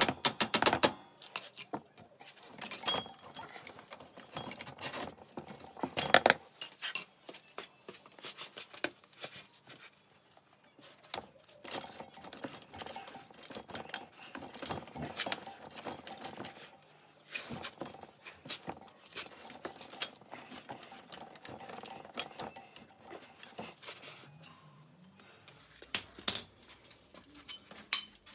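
Scattered metallic clinks, taps and tool-handling knocks on an ATV's swingarm pivot bolt as it is worked loose. It opens with quick, even ratchet-wrench clicking that stops about a second in, and there is a sharper knock near the end.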